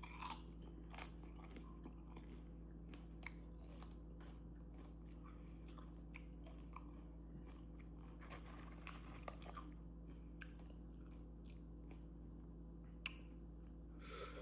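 A person chewing homemade corn tortilla chips, fried a little soft, with salsa, close to the microphone: soft irregular crunches and small mouth clicks, with one sharper click near the end, over a low steady hum.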